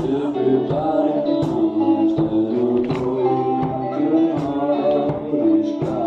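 Live rock band playing: a steady drum beat under bass and electric guitar, with a male singer singing into the microphone.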